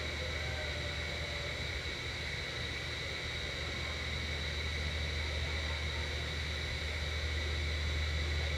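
Steady low rumble with a constant high-pitched whine and hiss; no distinct events.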